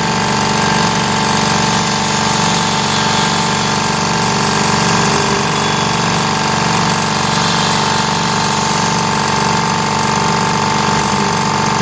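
Air compressor running steadily alongside a Carvera Air desktop CNC mill as it cuts with air assist: a constant mechanical drone with a steady high tone.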